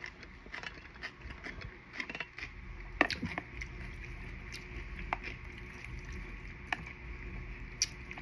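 Close-miked eating sounds: scattered soft clicks and smacks of chewing and slurping, the sharpest about three seconds in, over a steady low hum.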